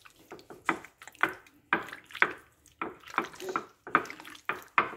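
A hand squeezing and mixing chicken pieces in a thick yogurt marinade in a glass dish: irregular wet squelches, about two or three a second.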